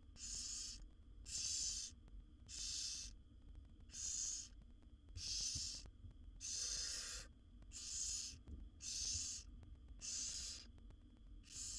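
Barn owl nestlings giving their hissing, snore-like begging calls, about ten rasping hisses, roughly one a second. A steady low hum runs underneath.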